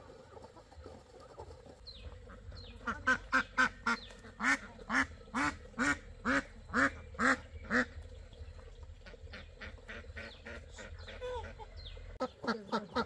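A domestic duck quacking loudly about a dozen times in a quick, even run, roughly two quacks a second, followed by softer scattered calls and a few more quacks near the end.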